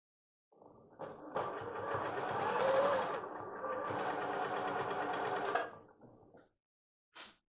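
Electronic sewing machine stitching through lace, running steadily for about five seconds, easing off briefly about three seconds in, then winding down. A short click follows near the end.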